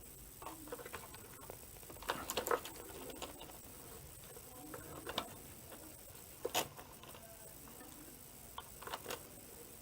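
Scattered light clicks and scrapes of pliers pushing wire leads through holes in a headlight housing, a handful of small knocks a few seconds apart.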